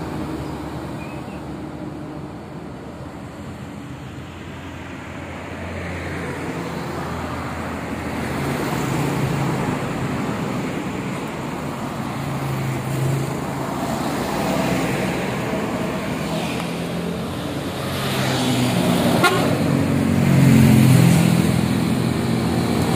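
Roadside traffic: engines of motorcycles, cars and trucks passing one after another, each swelling and fading as it goes by, with a vehicle horn tooting.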